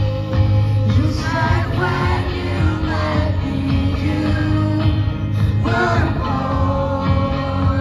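Live indie rock band playing through a concert PA: a woman's lead vocal over electric guitar and bass.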